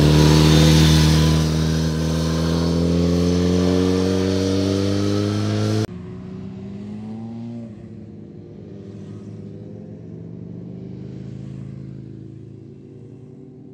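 Motorcycle engine accelerating out of a bend, its pitch rising steadily. About six seconds in the sound cuts off abruptly, leaving a much quieter, muffled sound that fades away.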